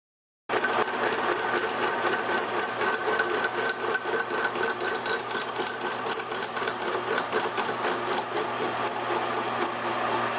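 Milling machine driving a hole saw through a steel subframe bracket: a steady, fast chattering whir of the cut, starting abruptly about half a second in.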